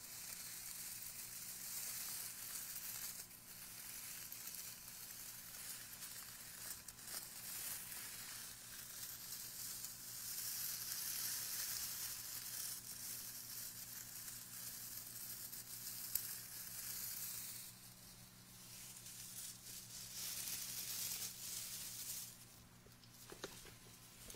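A handful of shredded packing filler squeezed and rubbed right against a microphone, giving a continuous close crackling and rustling that eases off briefly twice.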